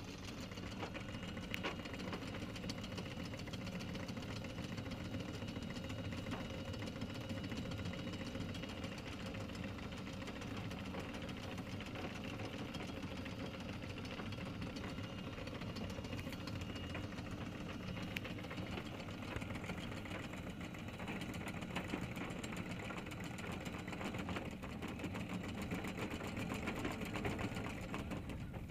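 A sailing yacht's inboard diesel engine running steadily at low revs while the boat manoeuvres slowly into its berth.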